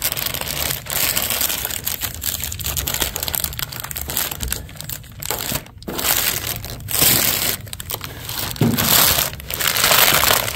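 Shipping packaging crumpling and crinkling as a boxed car hood is unpacked, a long run of rustles and scrapes with louder surges.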